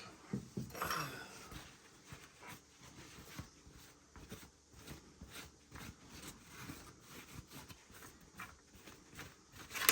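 Faint, irregular rubbing and handling sounds of a wet-sanded model car body being wiped dry with a towel, with a sharp knock right at the end.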